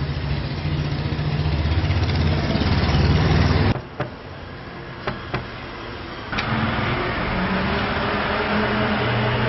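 Steady engine rumble that cuts off suddenly a few seconds in; in the quieter stretch a hand knocks a few times on a wooden door, and the engine rumble comes back near the end.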